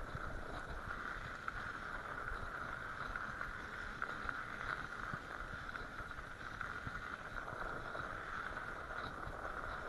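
Bicycle tyres rolling over packed, rutted snow: a steady hiss with fine crackle and a low rumble from the bike's shaking.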